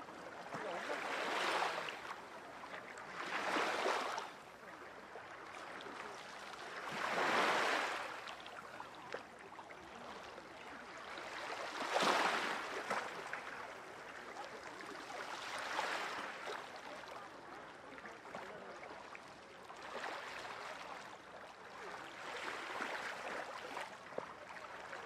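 Small sea waves washing onto a shore, the wash swelling and fading every few seconds.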